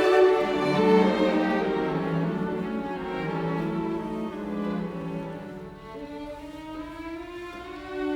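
Background music of bowed strings playing slow, sustained notes, growing gradually softer.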